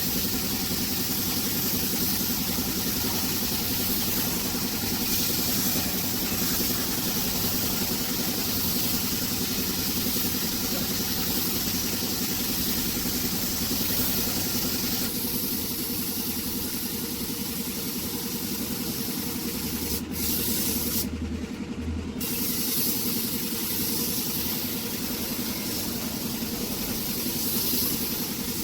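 Spray gun hissing steadily as paint is sprayed, with a machine running under it, and a brief break in the hiss about twenty seconds in.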